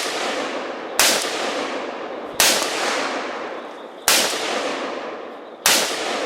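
Four gunshots about a second and a half apart, each followed by a long echo that dies away.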